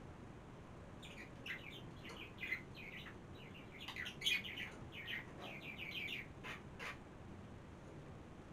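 Small birds chirping: a rapid run of short, high chirps starting about a second in and going on for several seconds, the loudest near the middle.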